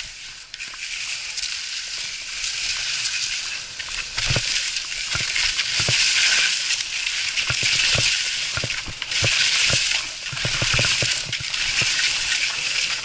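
Skis sliding and turning through soft snow: a continuous hiss that rises and falls in loudness, with scattered dull knocks from about four seconds in.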